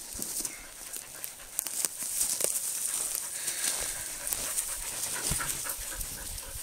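Norwegian Elkhound panting, with footsteps and rustling in dry grass.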